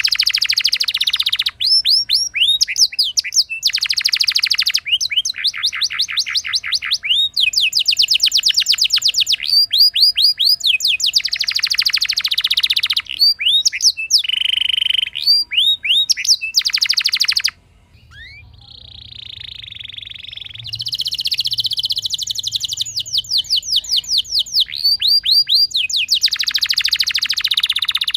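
Domestic canary singing: strings of quick, repeated chirp notes and fast rolling trills. The song breaks off suddenly about two-thirds through, then starts again.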